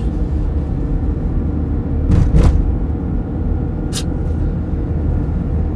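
Steady low rumble of a Fiat Fiorino van's engine and tyres on the road, heard from inside the cab while driving. A brief thump comes about two seconds in and a short click at about four seconds.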